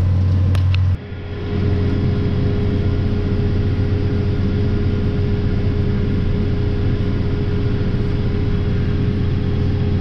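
Tractor engine running steadily, heard from inside the cab: a low drone with a thin, steady whine above it. The sound dips briefly about a second in, then carries on as before.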